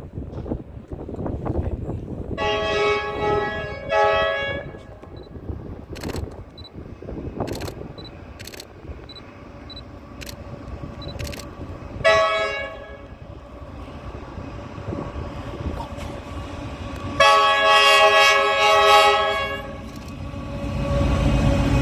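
Train horn sounding a chord of several notes in separate blasts: two close together, a short toot about halfway, and a longer blast near the end. Under them is the rumble of the train, which grows louder toward the end.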